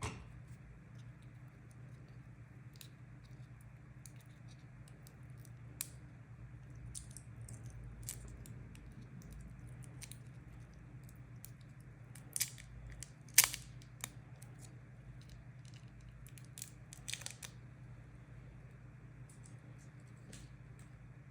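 Small hand work on an iPhone battery: scattered light clicks, crinkles and scrapes of plastic being handled, with a few sharper clicks about halfway through and again a few seconds later, over a steady low hum.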